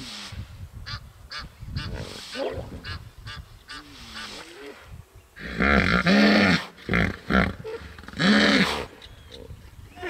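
Hippopotamus wheeze-honk call: a run of short, rhythmic pulses, then about halfway through three loud, deep, drawn-out honks.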